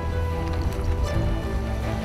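Background music: sustained held chords over a steady low bass, the chord shifting about a second in.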